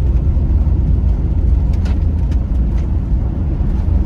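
Steady low road and engine rumble of a car driving at highway speed, heard inside the cabin, with a few faint clicks.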